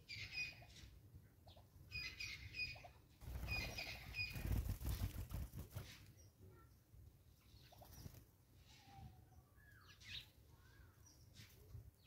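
Wings fluttering as birds come and go at a fruit-laden feeding stump, a Cape starling leaving and a dark-capped bulbul landing, loudest from about three to six seconds in. Short, sharp, repeated bird chirps come before it, and faint scattered calls follow.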